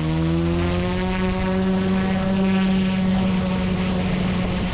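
Eachine E120S RC helicopter spooling up: its brushless main motor and spinning rotor make a whine that rises in pitch over the first second or so and then holds steady.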